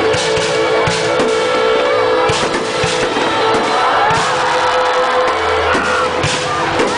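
Fireworks bursting over loud music: about six sharp bangs, a second or more apart, cut through a steady music track with a heavy bass.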